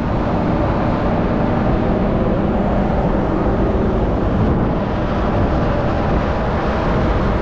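Steady wind noise rushing over the microphone on a ship's open deck at sea, with a low, steady hum of the ship's machinery underneath.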